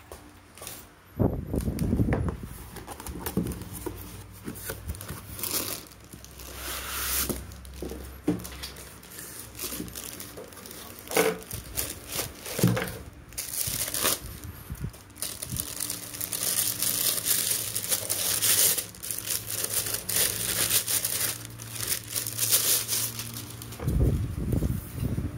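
Packaging being handled while a mixer is unboxed: plastic wrapping crinkling and tearing, with cardboard and foam end caps rustling and occasional knocks as the pieces are moved.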